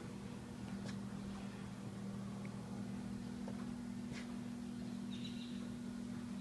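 A steady low machine hum, with a few faint clicks and a brief high chirp about five seconds in.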